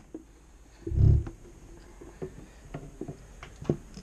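A desktop computer case being turned around and handled on a desk: a short low thud about a second in, then light clicks and taps.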